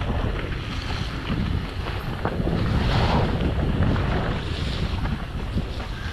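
Wind rumbling on the microphone over a mountain bike running down a wet, muddy trail, with tyres splashing through mud and water and frequent small knocks and rattles.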